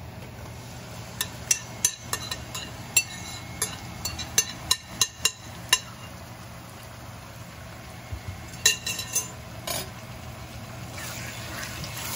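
Kitchen utensils clinking against cookware as raw chicken is tipped and scraped into a pot of fried onions: a quick run of about a dozen sharp clinks, then a few more a little later. A hiss builds near the end.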